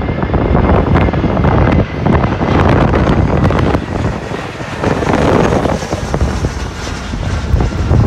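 Strong gusty wind buffeting the microphone, with the jet-engine noise of an easyJet Airbus A320-family airliner passing low overhead on approach underneath it.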